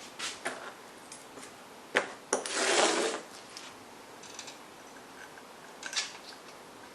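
Metal clicks and clinks of mounting bolts and hardware being handled, with a short rattle about two and a half seconds in and a sharp click just before it.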